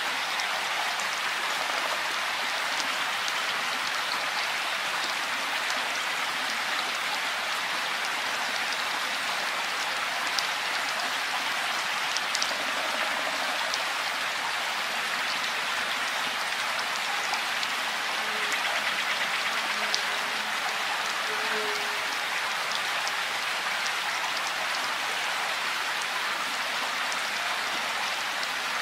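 Steady rain falling in woodland: an even hiss, with now and then a single drop ticking close by.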